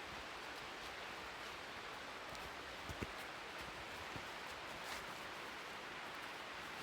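Waterfall: a steady, even rush of falling water, with a soft thump about three seconds in.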